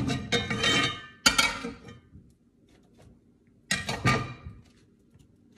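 Metal spatula scraping and clinking against a cast iron skillet, three short strokes, as scrambled eggs are scooped out of the pan.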